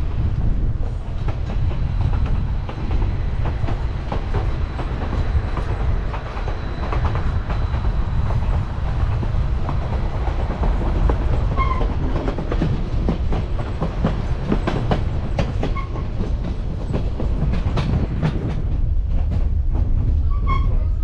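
Passenger train running on the White Pass & Yukon Route line: a steady low rumble, with wheels clicking and rattling over the rail joints.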